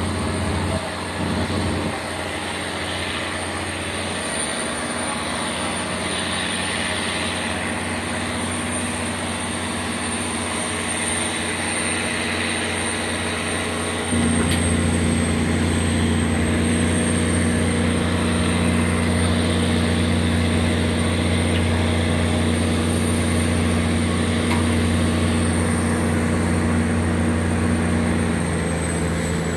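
Boat engine running at full power: a steady low drone that gets louder about 14 seconds in.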